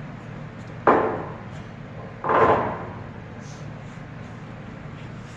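Kuraki hollow-spindle engine lathe's spindle brake being applied: two mechanical clunks about a second and a half apart, the second ringing briefly.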